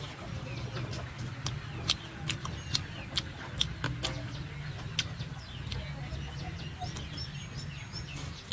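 Close-up eating sounds of chicken eaten by hand: irregular sharp chewing clicks and lip smacks, over a steady low rumble and faint bird chirps.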